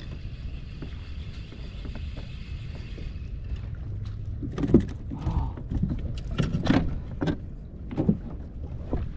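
Handling sounds on a kayak: a series of knocks and clicks from fishing gear being moved about, starting about four seconds in, over a steady low rumble of wind on the microphone and water against the hull. A faint steady high whine sounds for the first three seconds.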